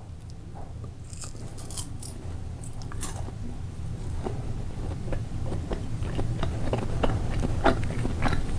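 A person chewing a chocolate-covered cicada close to the microphone: a run of small crunches and clicks that grows louder toward the end.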